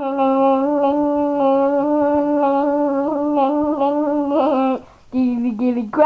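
A girl's voice droning one long, steady note for nearly five seconds, then a shorter note that sags slightly in pitch, made on purpose as an annoying sound.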